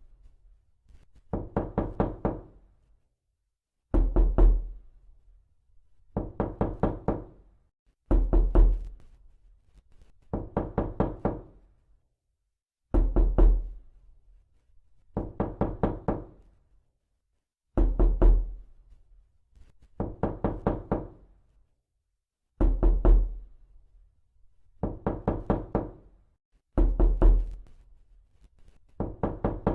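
Realistic knocking sound effect: quick series of about five or six knocks, repeated about every two seconds, with every other series heavier and deeper.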